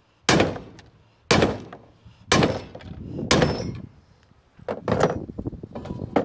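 Hammer blows on a drive shaft universal joint, driving the old cross back through the yoke to push a bearing cap out: four sharp metal strikes about a second apart, each ringing briefly, then lighter, quicker knocks and clatter near the end.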